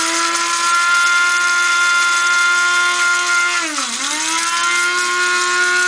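Electric blade grinder running loudly while grinding dried cannabis buds, a steady high motor whine. About four seconds in its pitch dips sharply and then speeds back up.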